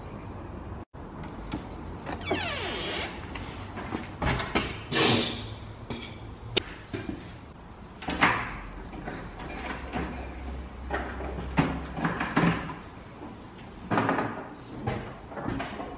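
Keys jingling and being worked in a front door's lock, with repeated clicks, rattles and knocks from the lock and door.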